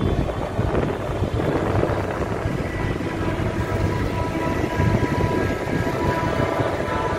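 Several tractor engines running together, with vehicle horns sounding as steady tones from about three seconds in.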